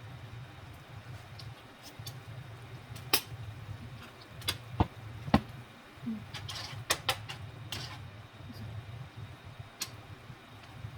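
Kitchen clatter: scattered light clicks and knocks, with a few short scrapes, over a steady low hum.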